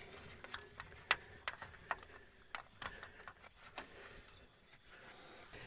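Faint, irregular small clicks and taps: wire-management clips being pushed onto the metal edge of a solar panel and the module wires snapped into them.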